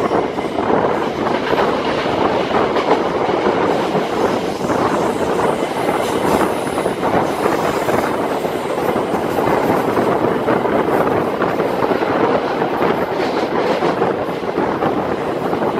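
Kertanegara passenger train running along the track, a steady, continuous noise of wheels on the rails.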